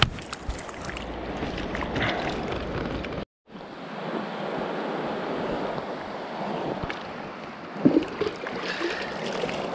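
A river's current runs steadily over stones, making an even rushing noise. The sound cuts out completely for a moment about a third of the way in, and there is one short louder sound near the end.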